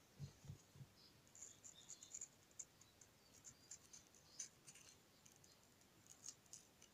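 Faint crisp ticks and scrapes of a thin carving knife cutting into watermelon flesh, hollowing out around the centre of a carved flower. A few soft low thumps in the first second.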